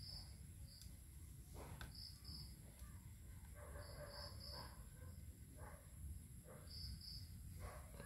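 Faint, short high-pitched chirps, mostly in pairs, recurring every second or two over a low background hum.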